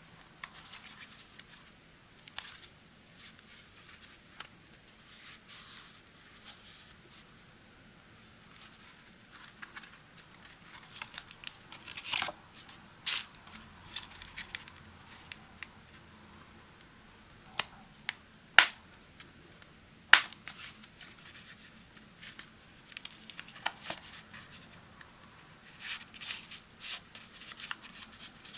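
Hands handling a slim bifold wallet with a metal money clip: fingers rubbing and scraping over its textured surface and cards sliding in its pockets, with a few sharp clicks and taps about halfway through.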